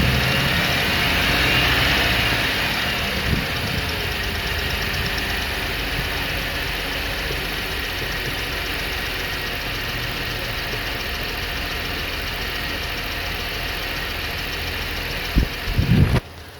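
Car engine idling with a fast, even ticking that the owner questions as lifter tick or something worse. The engine is a little louder for the first few seconds, then settles. Near the end come a few loud knocks, and the sound drops sharply.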